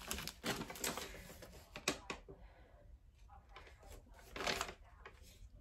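Paper rustling and crinkling in irregular bursts as a folded paper packing slip is handled and unfolded. There is a sharp tap about two seconds in and another burst of rustling about four and a half seconds in.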